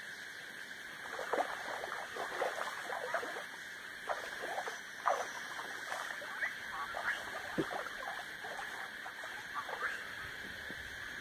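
Shallow river water splashing in short, irregular bursts as someone wades at the edge and scoops or splashes water by hand. A steady high hiss runs underneath.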